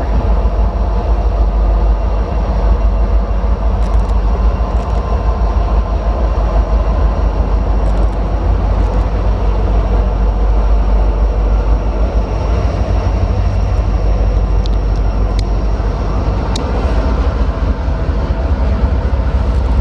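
Norfolk Southern freight train passing close by, its several diesel locomotives and wheels on the rails making a loud, steady low rumble.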